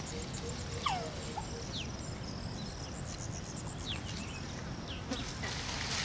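Outdoor field ambience: insects buzzing and trilling, with a few short falling whistled calls.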